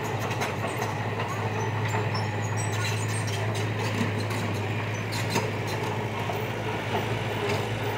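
Heavy construction machine's engine running steadily with a constant low hum, with scattered metallic clanks and clicks throughout.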